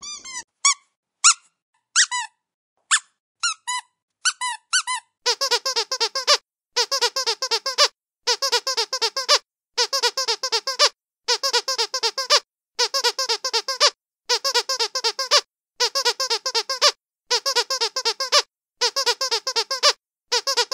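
Squeaky dog toy being squeezed. First come a few separate squeaks, then, from about five seconds in, rapid runs of squeaks in even bursts of about a second and a half with short pauses between.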